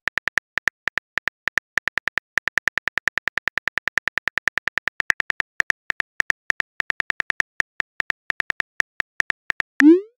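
Phone keyboard typing clicks from a texting-story app: a fast, even run of sharp taps, about seven a second, one per letter as a message is typed. Just before the end comes a short rising swoosh as the message is sent.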